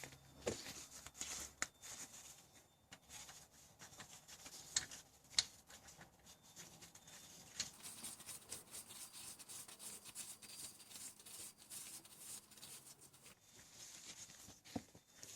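Faint hand work at a car's rear differential drain plug: soft wiping and rubbing, with scattered light, irregular metal clicks as the area is cleaned and the plug is handled and refitted.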